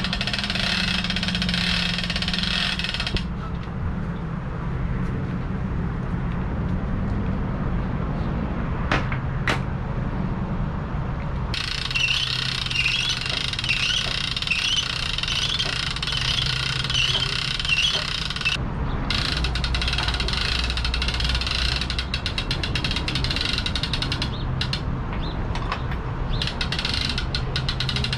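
Boat trailer winch being cranked to pull the boat onto the trailer, its ratchet pawl clicking in quick runs and the gear grinding in spells, over the steady hum of an engine running.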